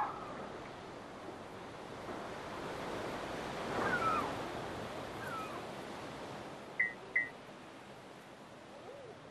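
Rushing sound of ocean surf that swells to a peak about four seconds in and then slowly fades. Over it come a few short sliding animal calls, with two quick chirps about seven seconds in.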